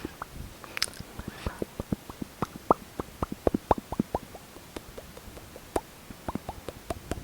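Close-miked wet lip smacks and small mouth pops, many quick irregular clicks, as lipstick is worked onto the lips.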